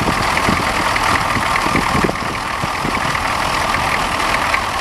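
GM 6.2-litre diesel V8 in a Chevrolet K5 Blazer, idling steadily with an even diesel clatter.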